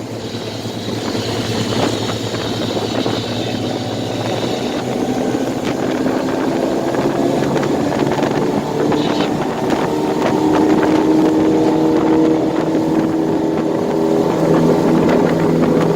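Twin 60 hp Mercury four-stroke outboard motors running with the boat under way, over wind and water noise. About five seconds in the engine note rises and gets steadily louder as the motors speed up.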